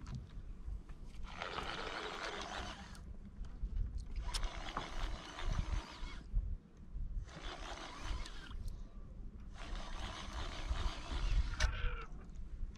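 Fishing reel being cranked in four bursts of a couple of seconds each, with short pauses between, as a fish is reeled in on a jigging rod. A low steady rumble runs underneath.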